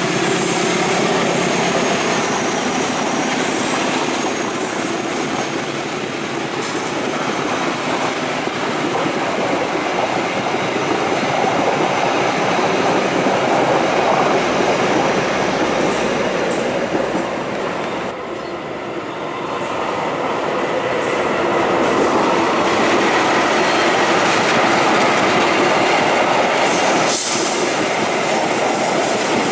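Passenger-train coaches rolling past on curved track: the steady noise of steel wheels running on the rails. The sound dips briefly a little past halfway, then a second passenger train rolls by.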